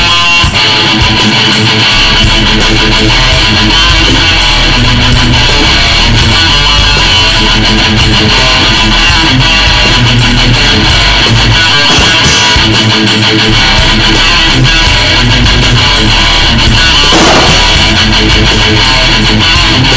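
Loud, densely mixed music track led by strummed guitar, playing steadily.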